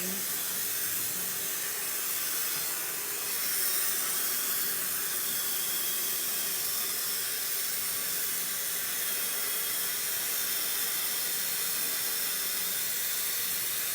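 Handheld blow dryer running steadily, a constant rushing hiss of hot air blown at full speed while drying hair.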